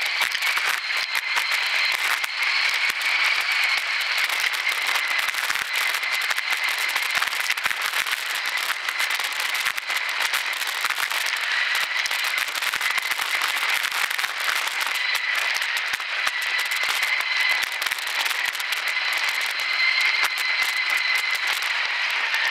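Mountain bike ridden over a rough trail, heard through a camera fixed to the rider or bike: a dense, steady crackle and rattle of tyres and frame, with a steady high whine underneath.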